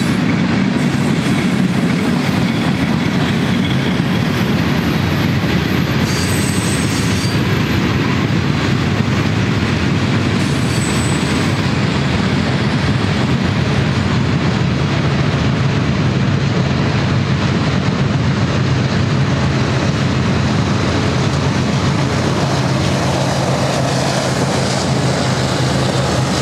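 Freight cars of a long mixed freight train rolling past, with a continuous rumble and clatter of steel wheels on rail. There are brief high wheel squeals twice, about six and eleven seconds in. From about halfway, the train's rear pair of diesel locomotives passes, adding a steady low engine drone.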